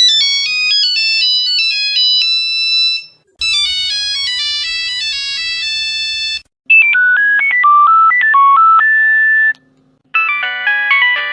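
Nokia mobile phone ringtones: four short electronic melodies, one after another, each about three seconds long with a brief pause between them.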